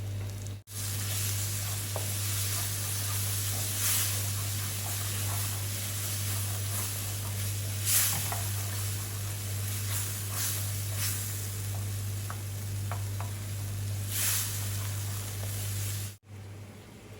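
Onion, tomato and cashew gravy base sizzling in cooking oil in a pan as it is stirred, with a scrape of the spoon every few seconds. A steady low hum runs underneath.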